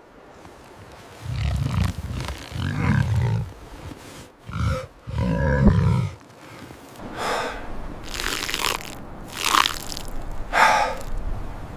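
A large animal growling in four low, rough bursts, then four loud, harsh breaths.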